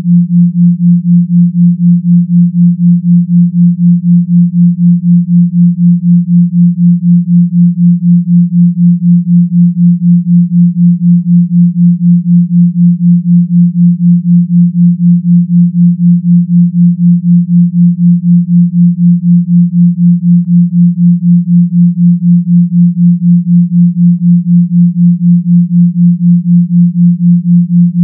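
A steady low pure tone around 174 Hz, pulsing evenly about four times a second: a binaural beat made from 172 Hz and 176 Hz sine tones, beating at a 4 Hz theta rate.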